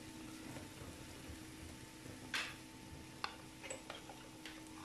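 Wooden spatula scraping shredded boiled chicken off a paper plate into a frying pan: a few faint scrapes and light taps, the longest about halfway through, over a low steady hum.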